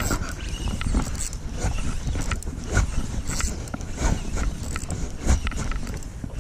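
Gusty wind buffeting the microphone in an uneven low rumble, with choppy water lapping against a small boat's hull.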